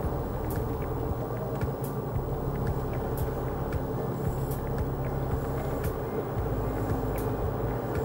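Steady road and engine noise of a car driving along at speed, heard from inside the cabin, with a low rumble and a scattering of faint light ticks.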